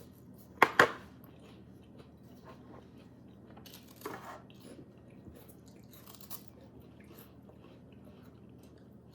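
A thin, crisp wafer cookie being bitten and chewed close to the microphone: two sharp crunches a little under a second in, then quieter crackling chewing with a few louder crunches.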